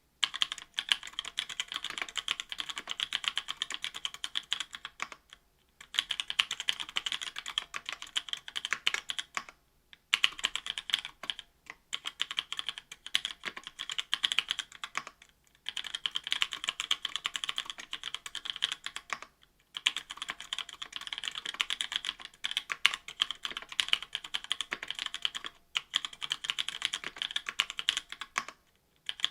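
Fast typing on a mechanical keyboard with stock Kailh Pro Burgundy linear switches, an aluminium plate and GMK keycaps: dense runs of key clacks several seconds long, broken by short pauses about every four to six seconds.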